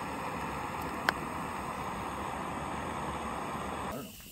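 Gas canister backpacking stove burner running with a steady hiss, with one sharp tap about a second in. The hiss cuts off abruptly near the end.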